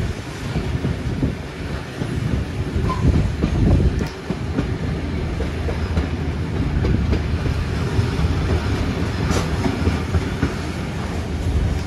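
Heritage passenger carriage riding on the rails, heard from on board: a steady rumble with irregular clicks and clatter from the wheels over the track, and one sharper knock about three quarters of the way through.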